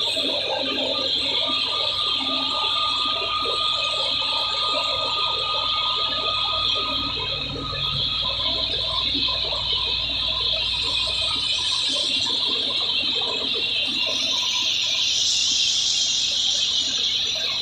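Tractor-driven wheat thresher running steadily under load as wheat sheaves are fed in: a constant high-pitched whine over a dense rattle of straw going through the drum.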